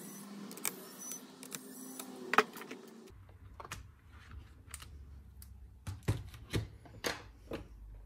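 Pen-style electric screwdriver running steadily for about three seconds as it backs out a laptop screw, then stopping abruptly. After it come a series of sharp clicks and taps as the laptop's battery is unclipped and lifted out.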